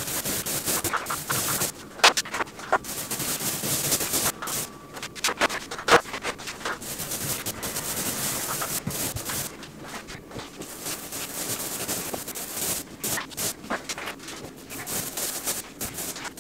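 Paint roller on an extension pole rolling wet paint across a ceiling: a continuous rasping, rubbing sound with many small clicks and a few sharper knocks.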